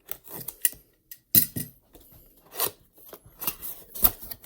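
Cardboard keyboard box being opened by hand: a run of sharp clicks, scrapes and rustles from the packaging, the loudest about a second and a half in and again near the end.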